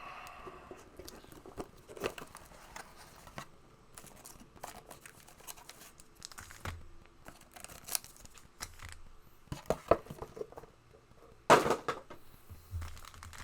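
Trading-card packs being opened and the cards handled and shuffled: wrapper crinkling and tearing with irregular sharp rustles and card snaps, the loudest snap about eleven and a half seconds in.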